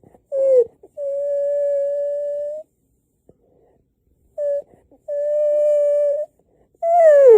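A dog whining in steady, high-pitched notes. There are two long whines, each a second or more, with short whines between them, and a last one that slides down in pitch near the end.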